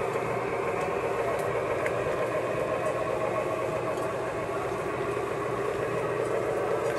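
Lionel three-rail O gauge freight train running steadily: the continuous rolling rumble of its cars passing along the track, with a constant low hum.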